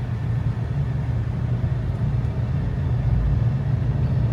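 Steady low engine and road rumble of a motor vehicle in motion, heard from inside the cabin.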